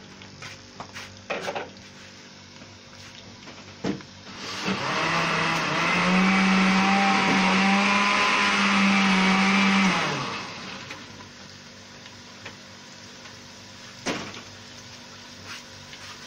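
A small electric motor whirs for about six seconds, rising in pitch as it spins up and dropping off as it stops. A few light knocks come before and after it.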